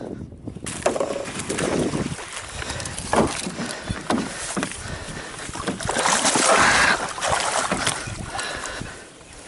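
Hooked black bass thrashing and splashing at the surface beside a small boat as it is played toward a landing net. Irregular sloshing is mixed with knocks and rustles of the net and gear being handled in the boat.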